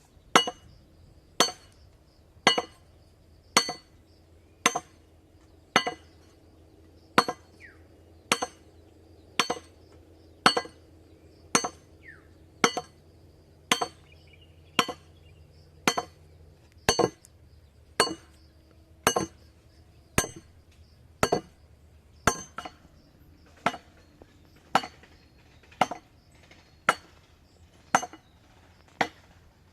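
A heavy metal knife chopping on a hard surface in slow, even strokes, about one a second, each stroke with a short metallic ring.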